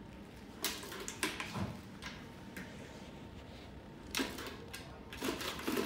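Light plastic clattering and taps from a cat playing with a round white plastic disc toy, in short bursts about a second in and again near the end.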